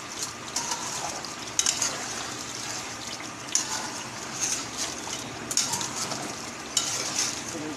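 Metal spatula stirring and scraping chicken korma with potatoes in an aluminium pot, with a few sharp clinks of metal against the pot over a steady sizzle of the simmering gravy.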